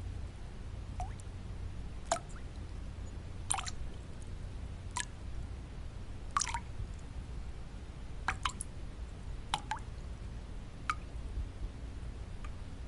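Water drops dripping one at a time, a single plink about every second or so, two of them close together near the middle, over a steady low white-noise bed.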